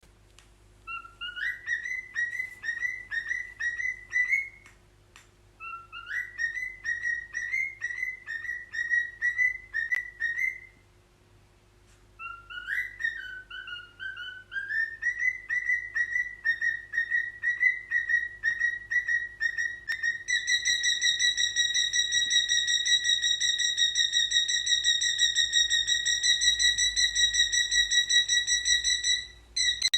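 Cockatiel whistling: three phrases of rapid repeated high notes, each rising at its start, broken by short pauses. About two-thirds of the way through it changes to a long, steady, rapidly pulsing high whistle, its imitation of a smoke alarm.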